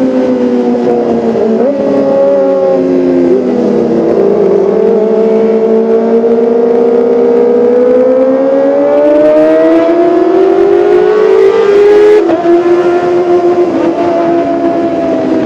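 Kawasaki ZX-25R's 249 cc inline-four engine running at high revs with a high, siren-like whine. The pitch sinks a little, then climbs steadily for several seconds and drops sharply about twelve seconds in.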